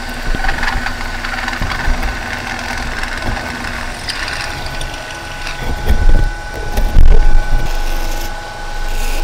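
Metal lathe running while a twist drill in the tailstock bores through an aluminium hose fitting, the motor and belt drive giving a steady whine over a low rumble. A few heavy thumps come about six to seven and a half seconds in.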